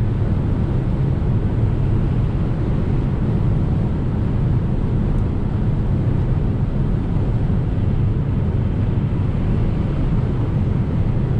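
Steady road and wind noise inside the cabin of an Opel Corsa-e electric car cruising at about 145 km/h: a deep tyre rumble with a hiss of wind over it.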